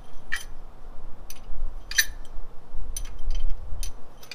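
Metal pushrods clinking as they are slid one by one into an LS1 V8's cylinder head: about five light metallic clicks, spaced roughly a second apart.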